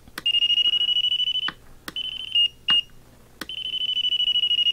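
Electronic beeper of a Tactic TTX650 radio-control transmitter sounding a high-pitched tone with a fast flutter as the throttle trim switch is held. It sounds for just over a second, then gives two short blips, then sounds again for almost two seconds, and each run starts and stops with a click of the switch.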